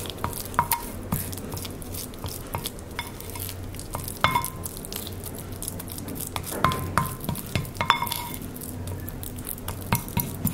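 A spatula stirring a thick, crumbly toothpaste mixture in a glass bowl, scraping and clicking against the glass. Many of the knocks make the bowl ring briefly.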